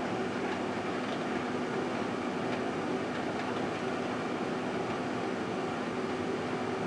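Microwave oven running: a steady electrical hum under even fan noise.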